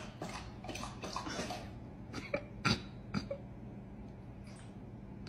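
Large dog lapping from a stainless steel pot in a run of quick wet slurps, with a few sharper clinks about two to three seconds in, over a faint low hum.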